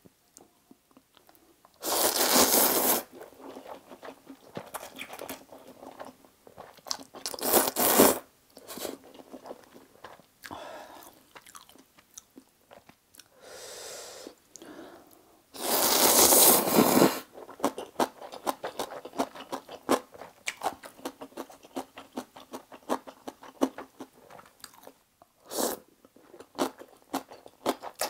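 Close-miked eating of instant stir-fried ramen noodles: two long, loud slurps of noodles, about two seconds in and again about sixteen seconds in, and a shorter one near eight seconds. Between them, steady wet chewing with many small clicks of the mouth.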